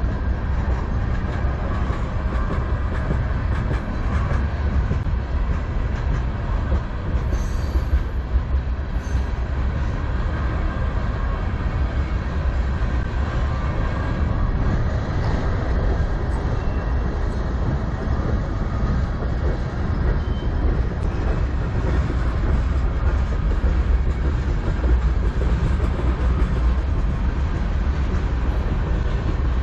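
Freight train tank cars rolling past, a steady rumble of steel wheels on rail.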